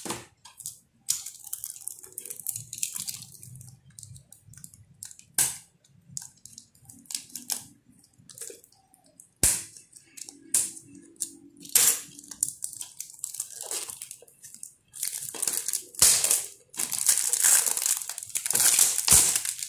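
Plastic shrink wrap on a DVD case being slit with a small blade and peeled off. Scattered clicks and taps of the plastic case come first, then a longer stretch of crinkling film near the end.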